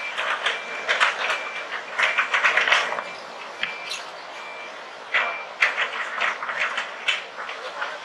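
A vehicle's reversing alarm beeping, one short high beep roughly every two-thirds of a second, stopping about five seconds in, over an irregular crackling hiss.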